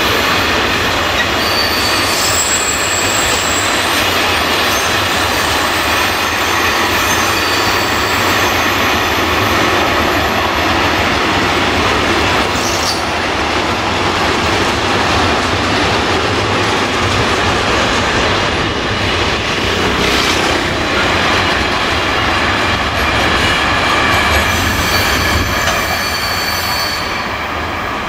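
A train rolling past: a continuous loud rumble of wheels on rail, with a high squeal from the wheels that is clearest about two seconds in and again near the end.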